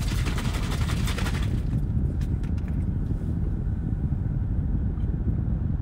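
A bottle of orange drink shaken hard for about a second and a half, the liquid sloshing and rattling inside. It is heard over a steady low rumble in the car's cabin.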